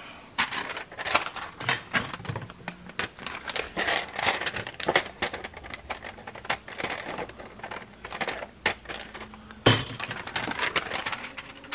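Paper rustling and crinkling as it is handled and trimmed with scissors, with scattered small clicks and snips and one sharper click near the end.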